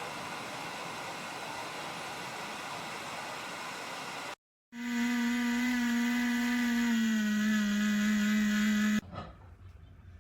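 Small ceramic fan heater running: a steady rush of air from its fan, then after a short break a louder steady motor hum that drops slightly in pitch about seven seconds in and cuts off suddenly near the end.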